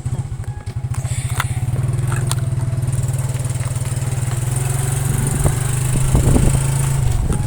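Vehicle engine running steadily with a low, rapid throb.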